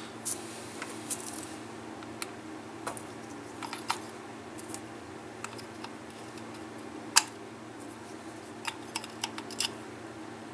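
Metal starter-motor parts clicking and clinking as they are handled and fitted by hand during reassembly: scattered light clicks, the loudest a sharp click about seven seconds in. A steady low hum runs underneath.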